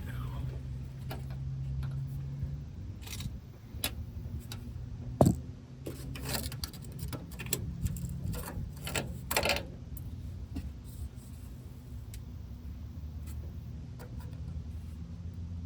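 Metal hand tools clinking and knocking against the truck's brake line fitting and chassis as the brake line is worked loose: scattered clicks, with one sharp knock about five seconds in and a couple of jangling clusters later. A low steady hum runs under the first couple of seconds.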